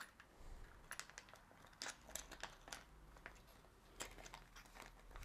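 Faint crinkling of a small packaging bag being handled and opened by hand: a few scattered soft crackles and clicks.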